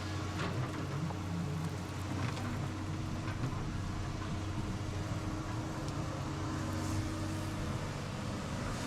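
Excavator engine running steadily, with a few light knocks.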